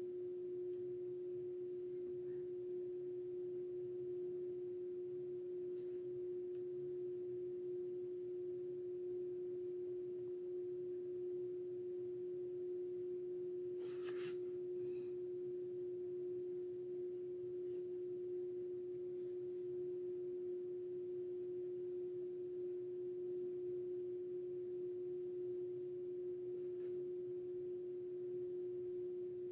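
A steady single-pitch hum that never changes, with one light tap about fourteen seconds in.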